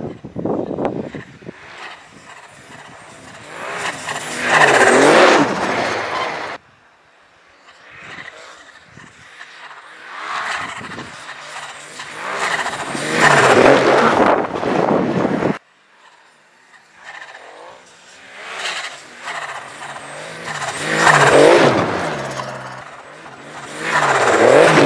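Turbocharged Yamaha Sidewinder MTX snowmobile's three-cylinder engine accelerating hard as the sled comes up and past, four times, each pass swelling to a loud peak. Twice the sound cuts off suddenly between passes.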